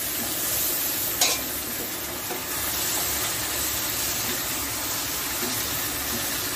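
Chicken pieces sizzling in a kadai as they are slow-fried in their spice masala, while a wooden spatula stirs and scrapes them around the pan. A single sharp knock about a second in.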